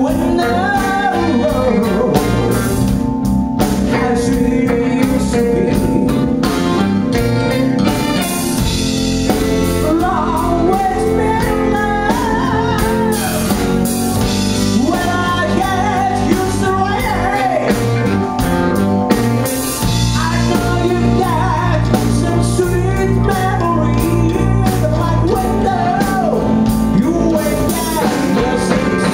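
Live band playing a soul-blues song: a singer over electric guitar, electric bass, keyboard and drum kit.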